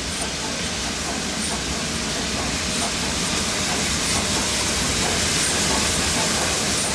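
LNER Peppercorn A1 Pacific steam locomotive Tornado running slowly into the platform with its train, a steady hiss of steam that grows louder as it draws near.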